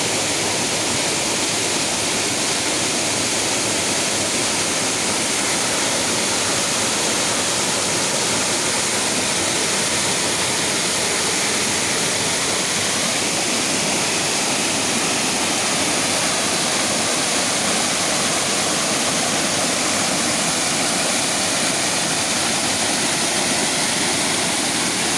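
A large natural waterfall roaring: a loud, steady rush of falling water that does not change.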